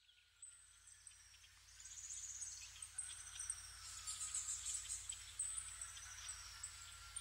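Faint countryside ambience: birds chirping and singing over a steady high insect trill, growing louder about two seconds in.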